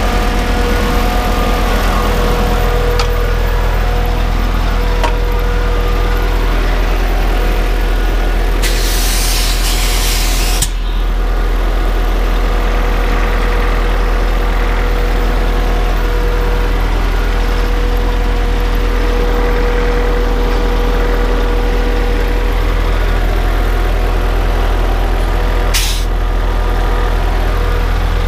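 Scania R truck's diesel engine running steadily, heard from inside the cab. A hiss of compressed air from the air brakes lasts about two seconds, about a third of the way in, and cuts off suddenly; a much shorter hiss comes near the end.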